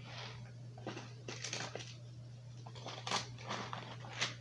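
School supplies and a plastic pencil pouch being handled and rustled while packing a backpack: scattered short rustles and crinkles, with two sharper ones about three and four seconds in.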